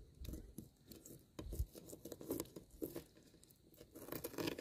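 Faint, scattered crackling and tearing of a giant shrimp's shell being peeled by hand, with a few soft taps.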